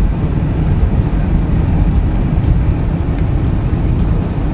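Steady low rumble of a car driving along a snow-covered road, heard from inside the cabin.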